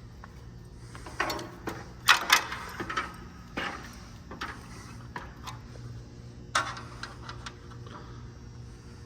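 Scattered knocks and clatter of hand work on a camper's roof vent hood and its crank, loudest about two seconds in, over a steady low hum.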